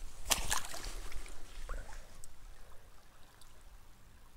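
A few quick scrapes and clicks of pebbles and handling about half a second in, as a small fossil shark tooth is picked up off a gravelly creek bank, then a faint low hiss that fades.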